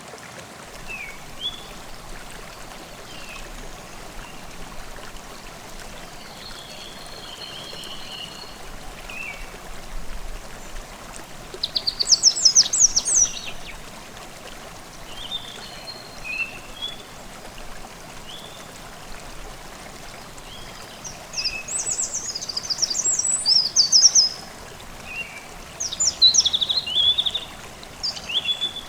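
A forest stream running steadily, with songbirds calling over it: scattered short chirps, and louder trilled bursts of song about twelve seconds in and again in the second half.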